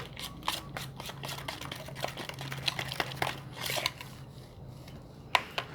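A teaspoon stirring glue and detergent-and-water activator in a small dish while making slime: a quick, irregular run of clicks and scrapes of the spoon against the dish, easing off about four seconds in, with one sharp click near the end.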